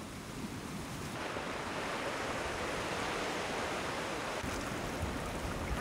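Sea surf washing over a rocky shore: a steady hiss of waves that grows a little louder about a second in.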